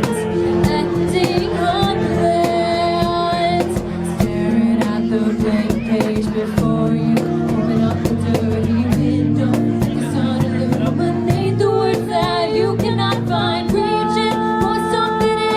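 Live acoustic band performance: strummed guitar chords under a singer holding long, wavering sung notes.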